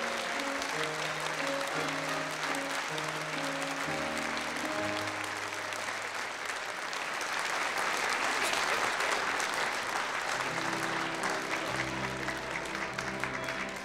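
Theatre audience applauding over instrumental stage music playing a melody. The clapping is loudest around the middle and eases off near the end as the music moves into a new phrase with a deeper bass line.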